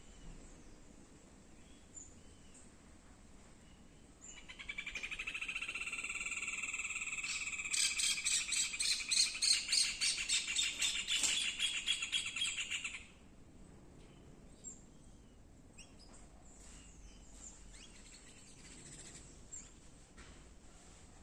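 A bird calling. About four seconds in, a loud, steady, high call starts; a few seconds later it breaks into a fast pulsing trill that stops suddenly after about nine seconds in all. Faint chirps come before and after.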